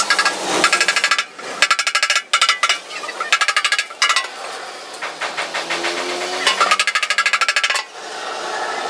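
Rapid metal-on-metal tapping on a motorcycle's sheet-steel fuel tank, in several bursts of quick, evenly spaced strokes, about ten a second, with short pauses between. The struck metal rings after each stroke. It is the sound of dents being worked out of an accident-damaged tank.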